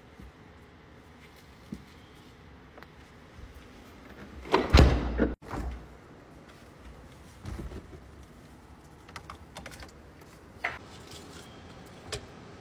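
Freezer door and handling noises: scattered light clicks and knocks, with one loud, brief rumbling bump about five seconds in that cuts off suddenly.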